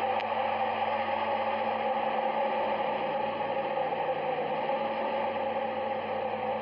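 Steady droning space-sound rendering for the exoplanet HD 189733b: a hissing, rushing noise over a low hum, with no beat or melody.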